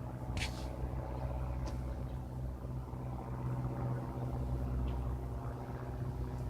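Cessna light aircraft's piston engine and propeller droning steadily at a constant pitch.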